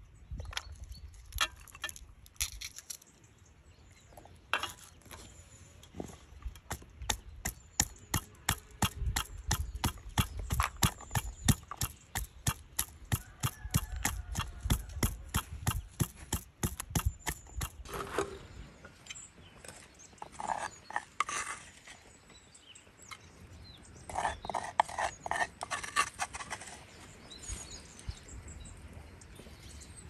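Brass pestle pounding garlic cloves in a wooden mortar: a steady run of sharp knocks, about three to four a second, through the middle stretch, which stops suddenly. Lighter scattered clicks and taps come before it.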